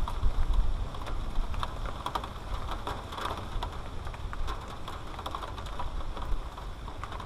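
Irregular small clicks and knocks of hand tools and hydraulic hose fittings being worked on under a mini excavator's seat panel, over a low rumble.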